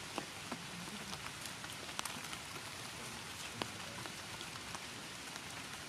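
Steady rain falling, with a few louder single drops hitting close by.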